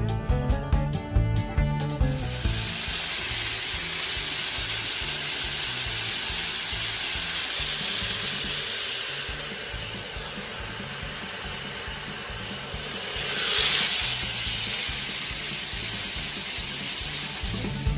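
Bluegrass music for the first two seconds, then a steady hiss of grain deer feed pouring down a corrugated downspout into a plastic feeder barrel, growing louder for a moment about two-thirds of the way through.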